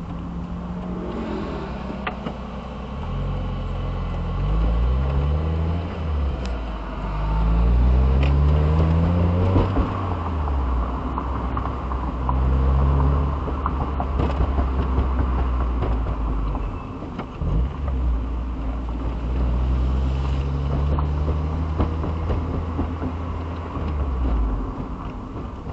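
Engine, tyre and wind noise heard from inside an open-top convertible driving at low speed. The engine pitch rises several times as the car accelerates through the gears and falls back between.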